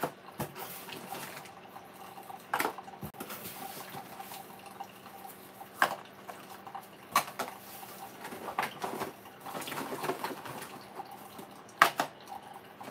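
Cardboard box of single-serve coffee pods being handled and opened: rustling and scraping, with scattered sharp clicks and knocks of the plastic pods a few seconds apart.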